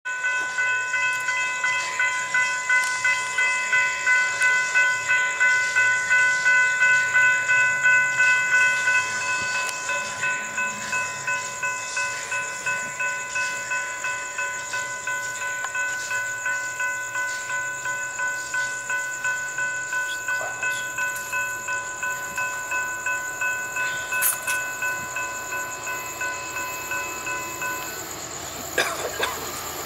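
Railroad grade-crossing warning bells ringing with quick, evenly repeated dings while the gate arms lower. One bell's ringing drops out about nine seconds in. The rest falls silent near the end as the gates come fully down, followed by a few knocks.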